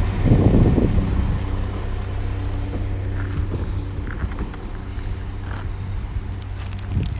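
Class 172 Turbostar diesel multiple unit idling at the platform, a steady low engine hum. A short rush of louder noise comes about half a second in, and a few sharp clicks near the end.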